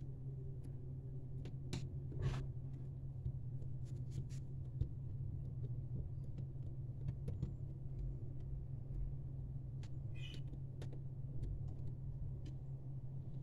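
A steady low hum, with scattered light clicks and taps of hands pressing softened Blue Stuff mould putty into a small frame.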